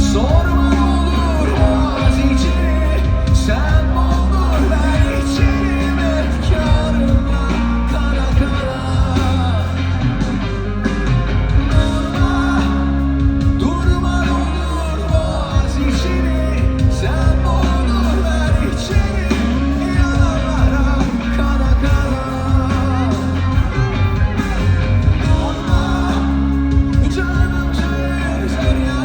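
Rock music with singing: a full band with a strong bass line and a steady drum beat under a sung melody.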